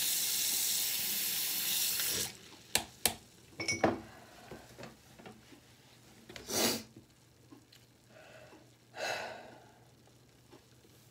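Bathroom sink tap running steadily while a face is washed, shut off about two seconds in. A few sharp clicks and small splashes follow, then two short rustles as the face is dried with a towel.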